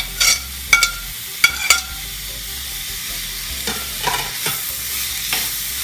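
Tomatoes, onions and ginger garlic paste sizzling in a frying pan while being stirred, the stirring utensil knocking against the pan several times with a short metallic ring.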